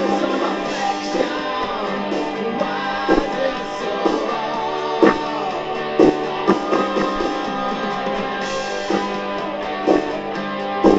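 Rock music playing: strummed guitar over a steady beat, with sharp drum hits about once a second.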